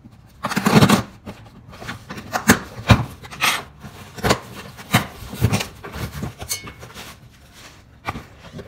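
A cardboard shipping box being opened: the packing tape slit with a blade, then the flaps pulled open, with irregular cardboard scraping, rubbing and sharp knocks. The loudest stretch is about a second in.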